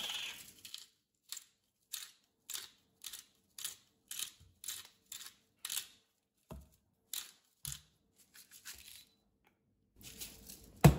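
Salt grinder being twisted over a mug, grinding Himalayan pink salt in short crunchy rasps about two a second, with a brief pause partway through. A sharp knock near the end.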